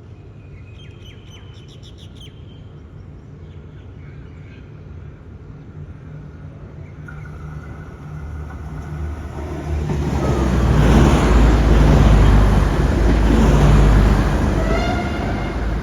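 A train passing close by, growing louder from about eight seconds in to a loud rush of running noise with a low hum, then easing off near the end with a brief rising whine. Birds chirp briefly near the start.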